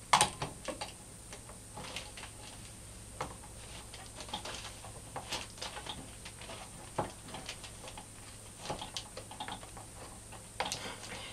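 Scattered light clicks and taps at an irregular pace, the sound of small objects being handled, over a faint steady background hum.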